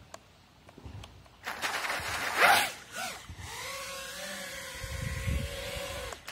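FPV quadcopter's 2306.5 1880KV brushless motors spinning up under and at the surface of water: a loud burst of spraying and splashing about two and a half seconds in, then a steady propeller whine for about three seconds as the drone churns at the water's surface, cutting off suddenly just before the end.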